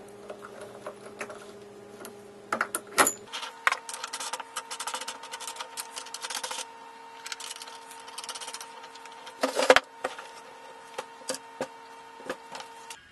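Metal clicking and rattling as step pulleys are slid onto a large threaded bolt serving as a lathe spindle and a nut is spun onto it by hand, over a faint steady hum. There is a sharp knock about three seconds in, then a run of rapid light clicks, and another few knocks later on.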